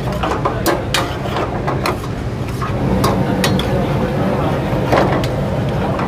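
Metal ladle clinking and scraping irregularly against a steel pan as thick curry gravy is stirred, over a steady low roar from the commercial gas range.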